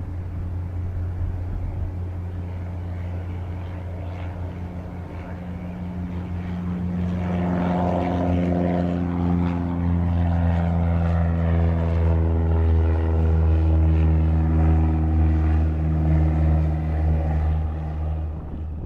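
Propeller aircraft engine droning with a steady pitch, growing louder about a third of the way in as it comes closer, then cut off abruptly.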